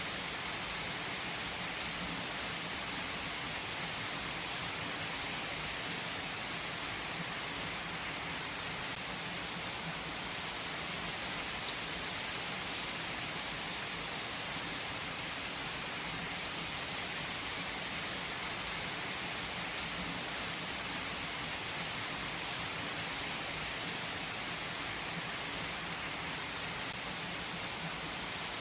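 Heavy rain falling on trees: a steady, even hiss of rain that does not let up.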